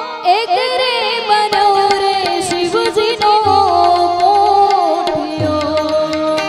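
Gujarati devotional bhajan: a woman singing a wordless, ornamented melodic line with bending pitch over sustained harmonium tones, with hand-drum beats coming and going.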